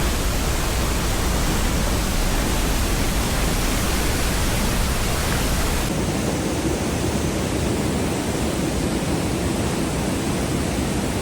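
Cheonmun Waterfall pouring heavily into its plunge pool with a steady, dense rush of falling water. It is running strong with rainy-season flow. The deep rumble eases slightly about six seconds in.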